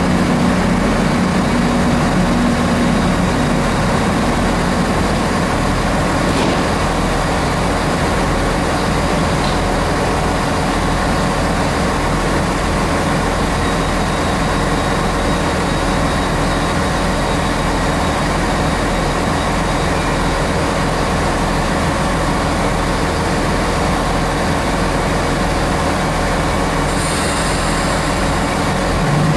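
Diesel train engine idling steadily, with a short high hiss near the end.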